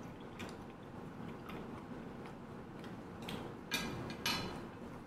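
Soft chewing with small mouth clicks, then two short crisp rustles about four seconds in as a hand picks through fresh lettuce and herb leaves on a plate.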